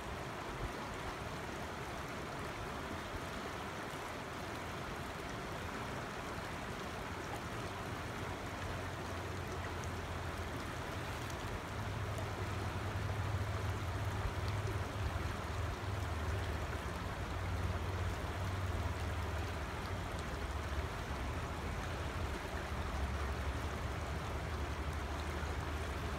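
Steady rush of a creek flowing over rocks, with a low rumble coming in about a third of the way through and staying to the end.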